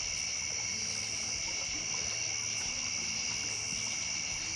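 Steady chorus of crickets and other night insects: an unbroken high shrill at two pitches, without a pause.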